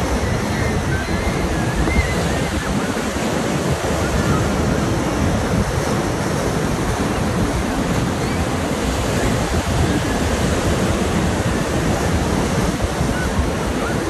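Ocean surf breaking and washing in foam over rocks at the shoreline, a loud, steady rush of waves.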